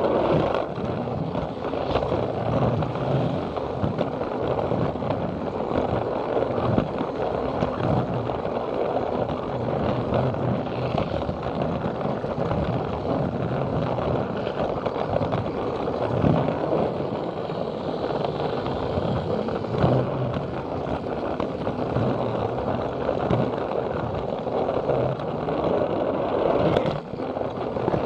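Battery-powered Plarail toy train running along plastic track: a steady motor whir mixed with the rolling, scraping rattle of its wheels, heard close up.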